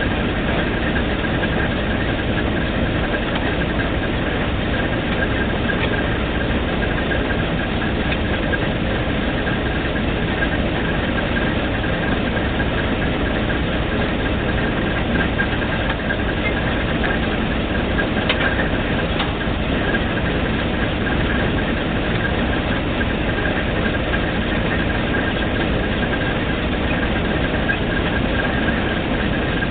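Failling 1250 drilling rig running steadily, its engine note unchanging, with a constant high whine above it.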